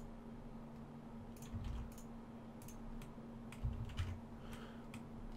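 Computer keyboard keys tapped now and then, a scattered handful of faint clicks, as Blender shortcuts are keyed in. A steady low hum sits underneath.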